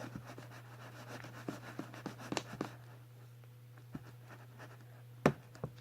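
Slime being stirred in a bowl with a utensil as activator is worked in: scattered soft clicks and scrapes, with a sharper knock about five seconds in, over a steady low hum.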